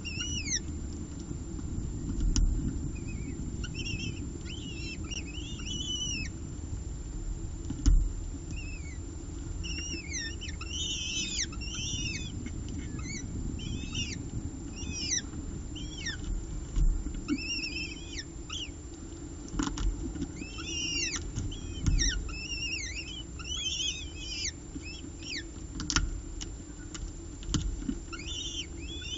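Downy peregrine falcon chicks giving thin, high begging chirps in quick irregular bursts while being fed, over a low steady rumble. A few sharp knocks, the loudest about eight seconds in.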